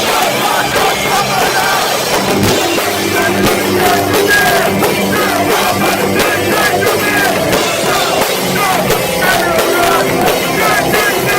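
A live heavy rock band playing loud, with drums, distorted guitars and shouted vocals. Recorded through a cheap phone microphone, so the sound is harsh and muddy.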